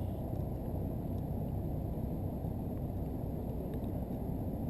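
Wind rumbling on the microphone: a steady low noise with no clear events.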